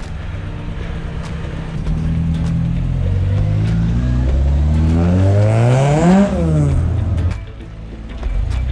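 A car engine accelerating: its note climbs steadily for about four seconds, peaks about six seconds in, then falls away quickly as the car goes past and the sound fades.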